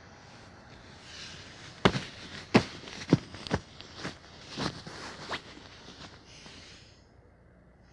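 A run of about seven sharp bangs, roughly two a second, over a rising and fading hiss.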